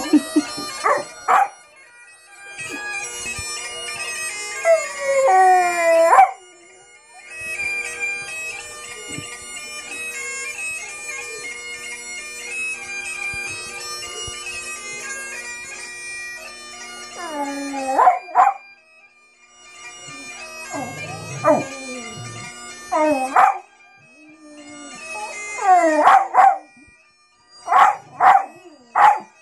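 Bagpipe music with its steady drones plays in stretches while a dog howls along in long rising and falling wails. Near the end the dog gives a quick run of short, sharp yelps.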